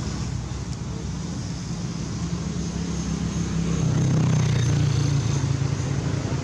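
Low, steady rumble of a motor vehicle engine, growing louder about four seconds in, as if passing by.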